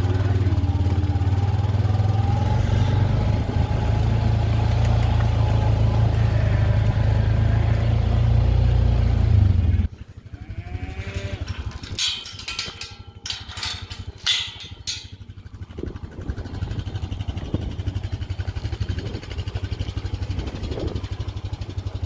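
Farm vehicle engine running steadily, cutting off abruptly about ten seconds in. A few seconds of sharp clattering follow, then an engine runs again more quietly.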